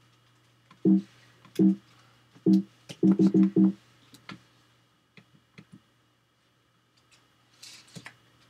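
Short musical sting of plucked notes: three low notes spaced about a second apart, then a quick run of four. A few faint clicks and a brief swish follow near the end.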